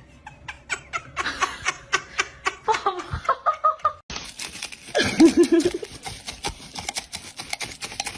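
People laughing in rapid short bursts. The sound breaks off briefly about four seconds in, then more laughter follows.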